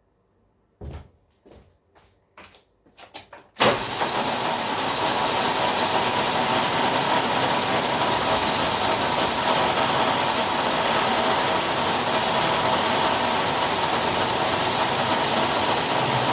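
A few short knocks, then a milling machine starts suddenly about three and a half seconds in and runs steadily, a dense mechanical noise with a steady whine through it.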